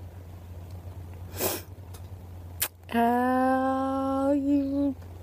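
A woman's voice holding one long drawn-out 'ahh' on a steady pitch for about two seconds, starting about three seconds in and wavering slightly near the end.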